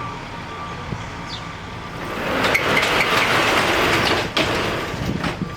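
Rear roll-up door of a box truck being pushed up: a loud rattling rush of sliding metal from about two seconds in, ending with a couple of knocks near the end.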